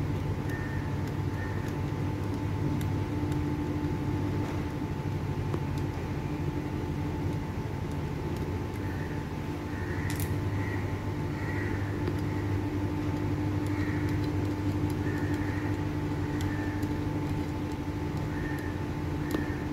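Steady low machine hum with a steady tone above it, and a single sharp click about ten seconds in; faint short high blips come and go.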